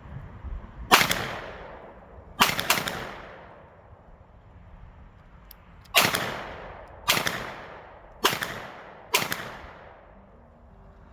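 About seven gunshots fired at irregular intervals, two of them in quick succession, each followed by a long echoing tail.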